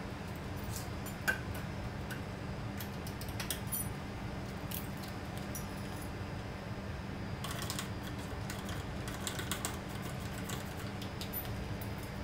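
Scattered light metallic clicks and clinks of a floor jack and hand tools being worked under a truck cab as it is lowered onto its mounts, over a steady low hum. The sharpest click comes about a second in, and a denser patch of clinks comes about two-thirds of the way through.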